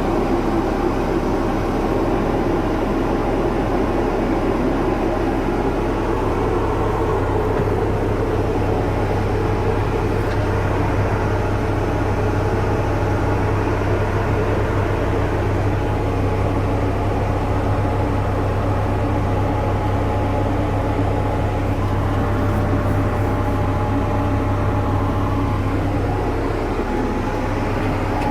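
Caterpillar 420E backhoe loader's diesel engine running steadily. A deeper steady hum joins it about a quarter of the way in and drops away near the end.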